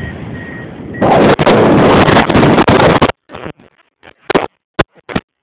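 Wind buffeting the camera microphone in flight on a tandem paraglider: a steady rush that turns very loud about a second in, then breaks into choppy, gusting bursts for the last couple of seconds.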